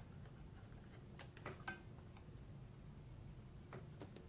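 Faint light clicks and taps of a laptop LCD panel being handled and set into the screen lid's frame: a few scattered ticks about a second and a half in and again near the end, over a low steady room hum.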